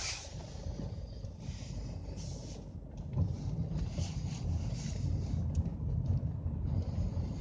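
Mercedes B-Class under acceleration with a low grinding rumble that gets louder about three seconds in: the grinding noise the owner puts down to the CVT gearbox.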